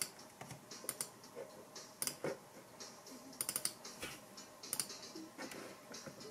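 Laptop keyboard and computer mouse clicks: a few irregular taps, with a quick cluster of several about three and a half seconds in.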